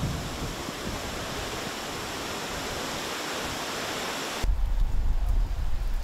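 Storm ambience: a steady rushing hiss of wind and rain. About four and a half seconds in it switches abruptly to a low, gusty rumble of wind buffeting the microphone.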